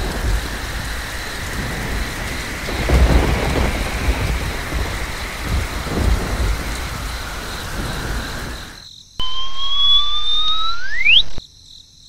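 Thunderstorm sound effect: steady heavy rain with thunder rumbling, swelling about three seconds in and again around six seconds, then fading out. It is followed by a rising whistle-like tone for about two seconds that sweeps up sharply at its end.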